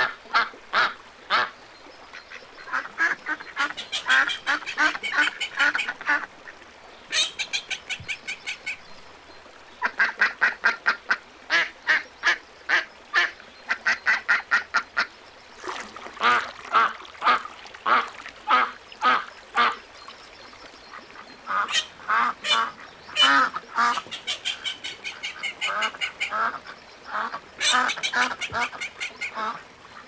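Ducks quacking in fast runs of short calls, several a second, with short pauses between the runs.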